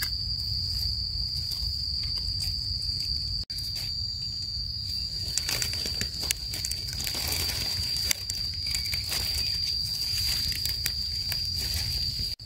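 A steady, high-pitched insect drone holding one pitch throughout, over soft rustling and crackling of dry leaf litter as hands move through the forest floor.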